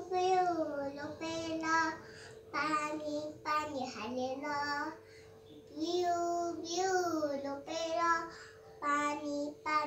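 A toddler girl singing a song learned at school, in short high-pitched phrases with brief pauses between them.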